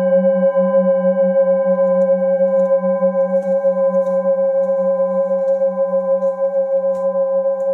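Metal singing bowls ringing on after being struck: several overlapping steady tones with no new strike. The lowest tone wavers in a steady pulse.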